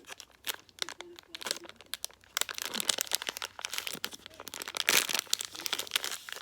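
Sealed plastic fruit-snack pouch crinkling as it is handled and torn open: a run of sharp crackles, busier from about two and a half seconds in.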